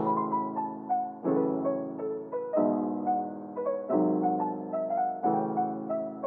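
Background piano music: a soft chord struck about every 1.3 seconds under a simple, gentle melody, with a muffled, treble-less sound.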